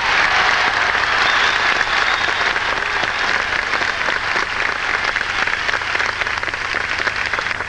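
Theatre audience applauding, densest in the first couple of seconds and then holding steady.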